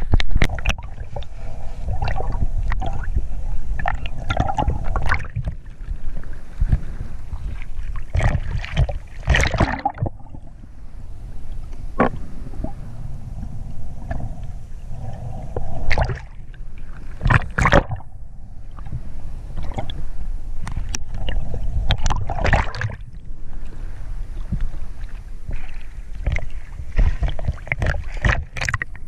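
Seawater sloshing and gurgling around an action camera moving at and just below the surface, with irregular splashes and bubbles and a steady low rumble of water against the housing.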